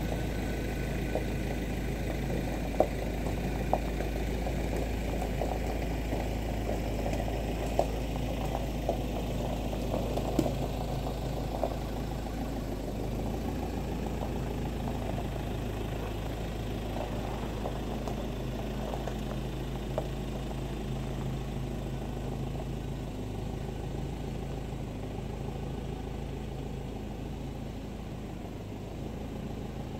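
A vehicle engine running steadily at idle as a Ford Ranger pickup reverses slowly across gravel. Scattered crunches of stones under the tyres come in the first dozen seconds, and the engine sound fades slightly as the truck backs away.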